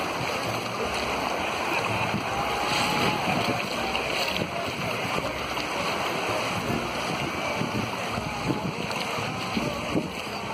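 Small waves washing onto a sandy beach, a steady wash, with wind noise on the microphone.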